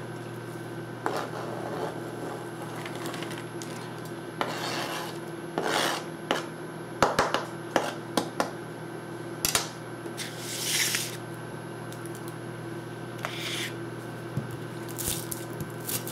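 Chef's knife scraping diced onion across a plastic cutting board and onto a paper plate: scattered scrapes and taps of the blade, with a longer scrape around the middle.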